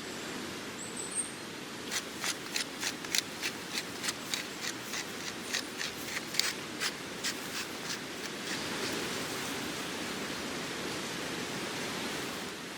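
A steady rushing noise, with a run of about twenty quick, sharp taps, roughly three a second, from about two seconds in to about eight seconds in, then only the rushing noise.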